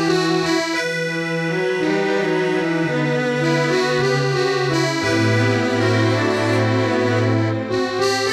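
Film score music led by an accordion playing held chords, with the bass line turning to an even pulse about halfway through.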